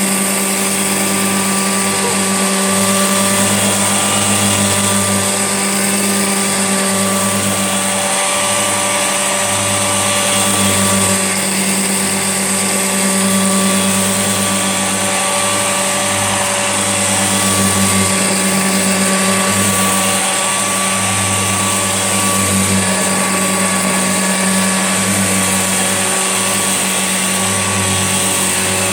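An old Hoover Junior upright vacuum cleaner running steadily at one pitch, its motor hum carrying a high hiss, with small swells in loudness as it is worked.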